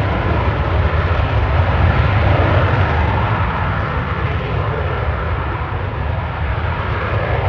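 Eurofighter Typhoon fast jet's twin turbofan engines, a loud steady rumble that eases slightly in the second half.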